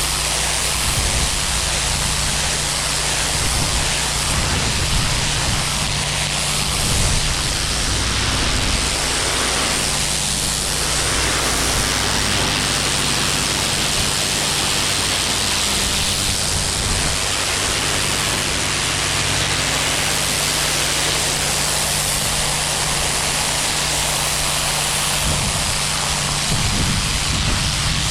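Pressure washer running steadily: a constant hiss of the high-pressure water spray over the low hum of its engine.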